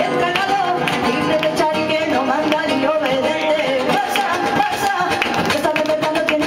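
Live flamenco: a woman singing with two nylon-string guitars strummed and plucked, and hand-clapping (palmas) keeping the rhythm.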